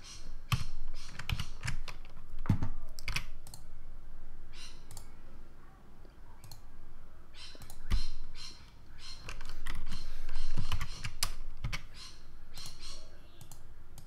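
Computer keyboard keys and mouse buttons clicking at an irregular pace, sometimes in quick clusters.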